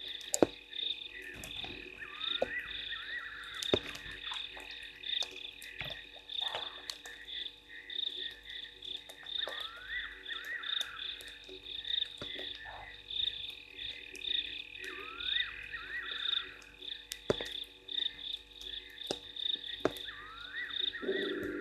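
A chorus of frogs calling: a steady, rapidly pulsing high trill with short rising calls that repeat every few seconds. Scattered sharp ticks run throughout.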